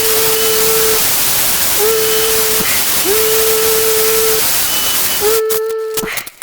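A power tool's motor whirring in four or five short bursts, each spinning up quickly to a steady pitch. A loud steady hiss runs with it and cuts off about five seconds in, after which sharp clicks are heard.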